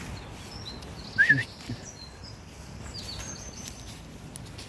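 Small wild birds calling with short high chirps and one held whistle, with a louder two-note chirp a little over a second in, over a low rustling outdoor background.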